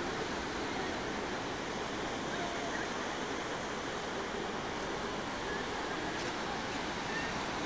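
Steady wash of Pacific surf breaking on a sandy beach.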